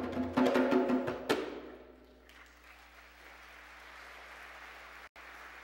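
Children's choir singing the closing chord of the song, cut off by one sharp percussive hit about a second in; faint audience applause follows.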